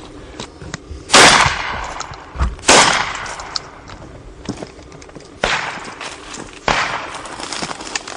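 Four shotgun shots: two very loud reports about a second and a half apart early on, then two weaker ones over a second apart, each ringing off briefly.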